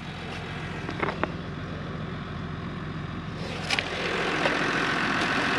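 A small utility vehicle's engine idling steadily. A hiss builds over the second half, and there are a few light clicks.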